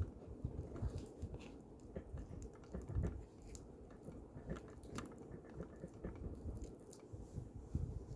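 White fluffy slime being stirred and squished, with irregular wet squelching and sticky little clicks and crackles.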